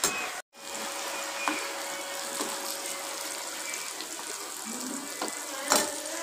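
Kitchen tap running into a stainless steel sink while hands are rinsed under it: a steady hiss of water, broken once by a brief gap about half a second in.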